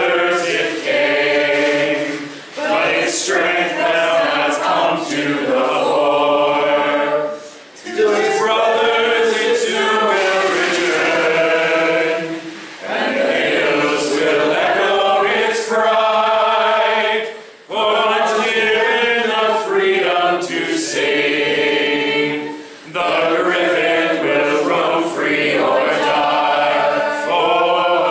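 A small group of voices singing a song together, in phrases of about five seconds with short breaks for breath between them.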